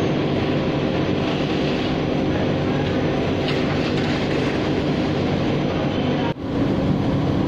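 Industrial laundry machinery running with a steady, even drone. The sound drops out sharply for a moment about six seconds in and comes straight back.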